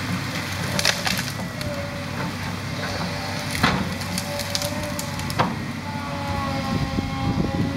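Volvo 210 tracked excavator running steadily with a faint whine that shifts in pitch, while the pine tree it is pushing into cracks and splinters in several sharp snaps, about a second in, near the middle and past five seconds.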